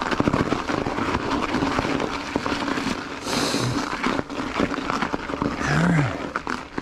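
Ibis Ripmo V2 mountain bike's 2.5-inch tyres crunching and cracking through a thin crust of ice over snow on a slow climb, a dense crackle throughout. Near the end comes a brief low grunt-like sound.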